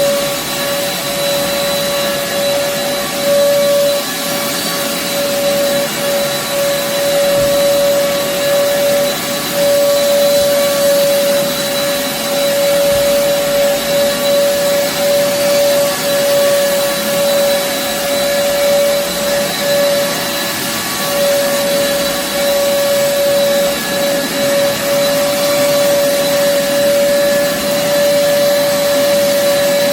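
An old upright vacuum cleaner runs steadily on carpet: a constant motor whine over a rushing airflow. This is a roughly ten-year-old machine that the owner says no longer has suction, despite cleaning and new filters.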